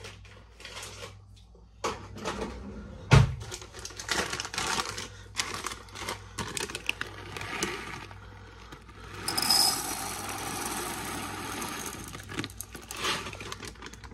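Plastic bag of whole black peppercorns crinkling and rustling as it is opened and handled, with scattered clicks and a loud knock about three seconds in. From about nine seconds in, peppercorns pour in a steady rattling rush into the grinder's clear plastic chamber.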